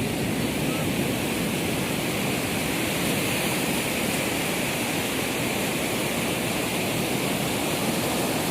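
Steady rushing of sea surf, an even noise that holds at a constant level throughout.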